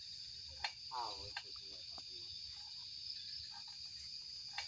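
Crickets chirring in a steady, even, high-pitched trill. A few sharp clicks and a brief, distant voice about a second in cut across it.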